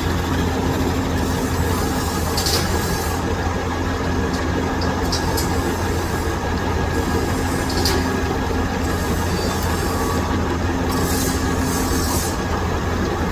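Metal lathe turning hardened steel with a cubic boron nitride insert: a steady machine hum under a high metallic hiss from the cut that comes and goes every second or two, with a few sharp ticks.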